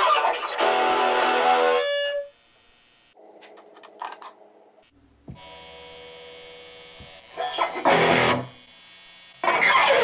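Electric guitar played with distortion through an Orange Micro Crush mini amp: a loud strummed chord rings for about two seconds and is cut off, then a few quiet picked notes, a short loud chord about three-quarters of the way in, and another chord near the end. Between the chords the amp's steady hum is heard.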